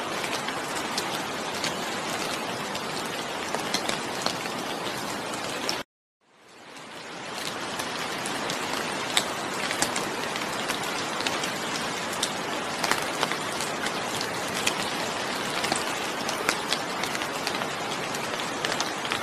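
Steady rain falling, with individual drops ticking sharply through the hiss. About six seconds in it cuts out completely for a moment, then fades back in over a couple of seconds, an edit or loop point in the recording.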